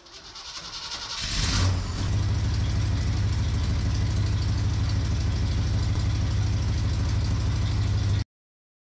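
1978 Chevy K10's 350 small-block V8 starting on its newly replaced starter: it fires with a surge about a second and a half in, then runs steadily until the sound cuts off abruptly near the end.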